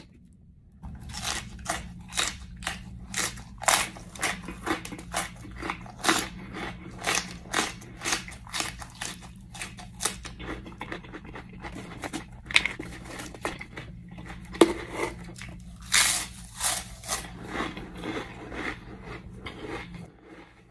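Close-up crunching of raw chili peppers being bitten and chewed, about two sharp crunches a second, over a steady low hum.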